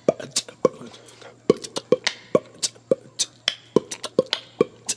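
A quick, uneven percussive beat of sharp clicks and short low thumps, about four or five hits a second, with no melody.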